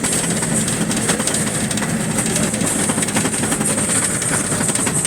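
Steady running noise of a moving road vehicle with a low rumble, a continuous rattling clatter and hiss.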